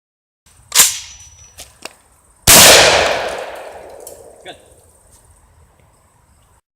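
Gunfire at a range: a sharp crack just under a second in, a couple of light clicks, then a loud shot about two and a half seconds in that rings out and fades away over about two seconds.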